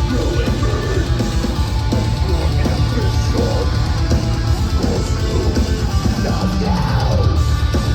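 Live metalcore played loud by a full band: distorted guitars and bass over fast drums, with no vocals.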